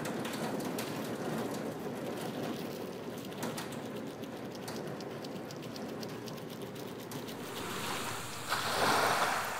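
Steady rain ambience, a soft hiss with many small drop ticks, swelling to a louder rush near the end.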